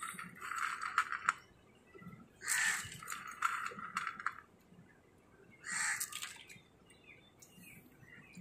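A crow cawing, loud harsh calls twice a few seconds apart, with softer rasping sounds in between.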